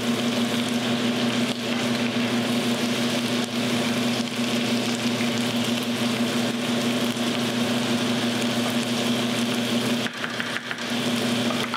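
Chicken stock with chicken thighs and vegetables bubbling and sizzling in a skillet as it comes up to a boil, over a steady low hum.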